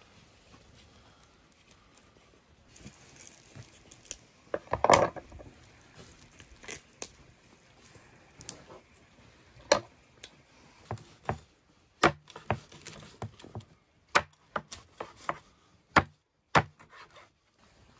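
Knife cutting the fins off a large grass carp on a wooden cutting board. A loud cluster of cutting sounds comes about five seconds in, then a string of short, sharp knocks as the blade chops through toward the board.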